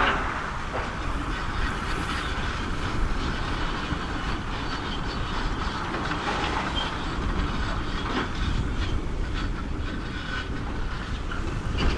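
Tracked Hitachi excavator working a heap of broken stone: its engine runs steadily under scattered knocks and clatter of rock in the bucket.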